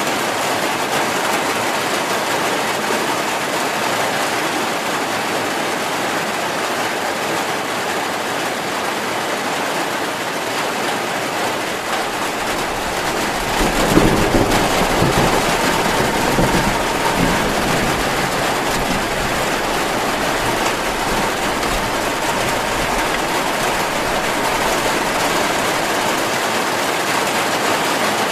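Steady heavy rain, an even hiss of falling water. About halfway through, a low rumble swells for a few seconds and then fades back under the rain.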